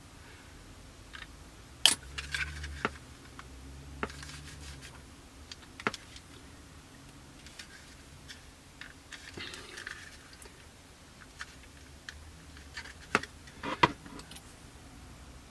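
Scattered light clicks and taps from a plastic model kit fuselage being handled and turned over, and from the cap of a glass liquid-cement bottle being set back on, with the loudest clicks near the end.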